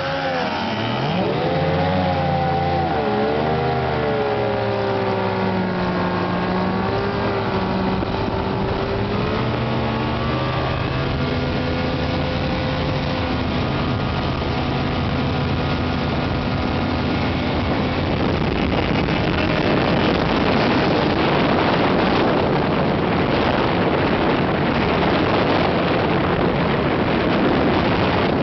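Outboard motors on aluminum flat-bottom boats running at speed, the engine pitch rising and falling as the boat turns and changes throttle, then holding steady. In the second half a louder rush of water and wind takes over beneath the engine note.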